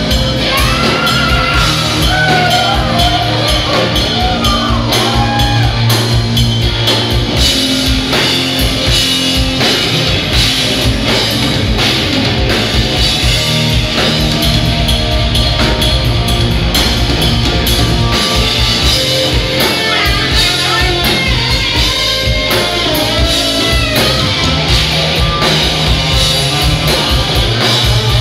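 A rock trio playing live: electric guitar, electric bass and drum kit at full volume, with a male lead vocal sung over it about a second in and again around twenty seconds in.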